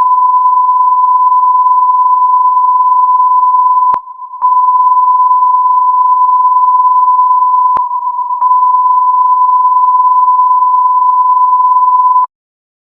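Loud emergency-alert attention tone held at one steady pitch, with two brief dips marked by clicks, about four and about eight seconds in. It cuts off abruptly near the end.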